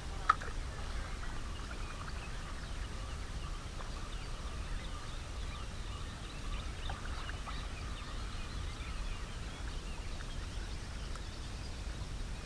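Outdoor riverbank ambience: a steady low rumble of wind on the microphone, with faint bird chirps scattered throughout. One sharp click comes about a third of a second in.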